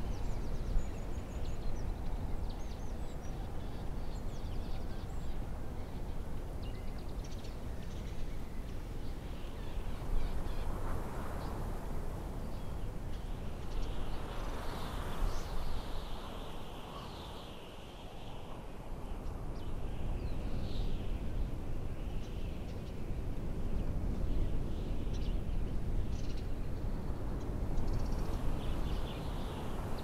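Steady low wind rumble with scattered bird chirps and calls. A run of short falling calls comes about halfway through, as the rumble briefly drops.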